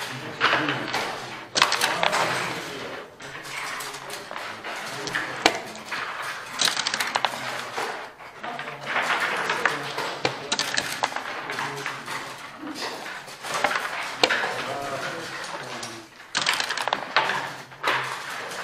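Indistinct voices murmuring in a hall, with repeated sharp clicks of backgammon checkers and dice on the board.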